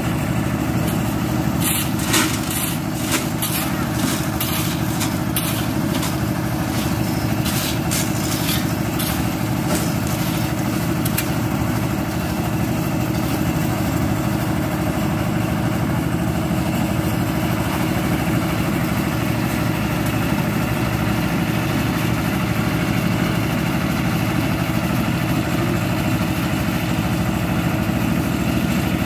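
Engine of a concrete mixer with hoist running steadily at a construction site, with a series of sharp metal clanks and scrapes of shovels and pans on gravel during the first ten seconds or so.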